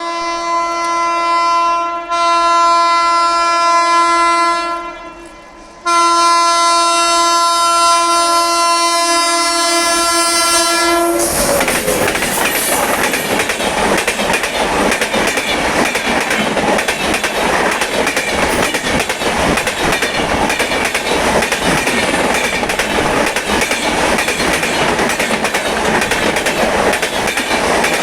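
A WAP-7 electric locomotive's twin-tone horn blows three long blasts with short breaks between them, the last one running about five seconds. About eleven seconds in the horn stops and the express train passes close by: a loud rush with wheels clattering over the rail joints.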